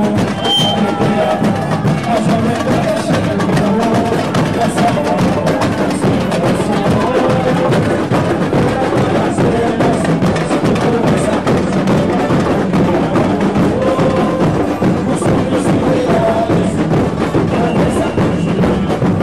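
Samba school bateria playing a steady samba groove: deep surdo bass drums under a dense, unbroken clatter of snare and repinique strokes.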